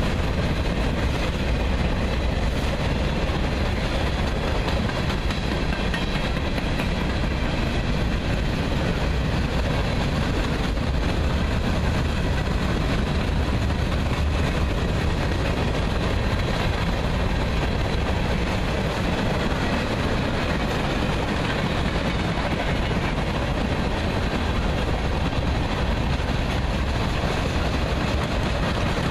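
Freight cars of a Norfolk Southern freight train rolling past on the rails: a steady, loud rumble of steel wheels on track.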